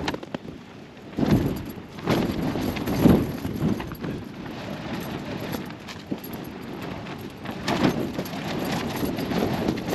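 Strong gusting wind howling against a Hilleberg Jannu tent, heard from inside, with louder gusts about a second, two seconds, three seconds and eight seconds in.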